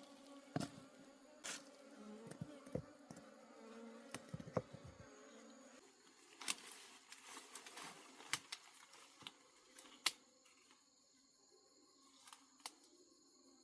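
Wild honey bees buzzing in a steady low hum that fades about six seconds in, with scattered sharp clicks and knocks. A thin high steady tone takes over near the end.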